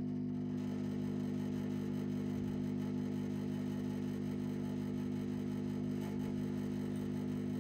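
Neuberger RPM370 tube tester humming steadily with a low, even mains hum. The hum is the sign that heavy current is flowing through the PL519 power pentode under test.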